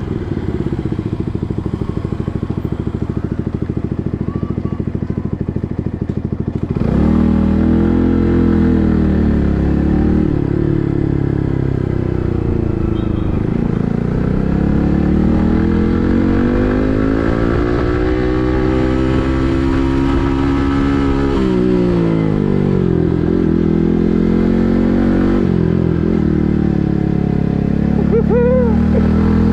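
A Yamaha MT-15's 155 cc single-cylinder engine running through an SC Project full-system exhaust. It runs low and steady at first. About seven seconds in it gets louder as the bike pulls away, and the engine pitch rises and falls several times as it speeds up and slows.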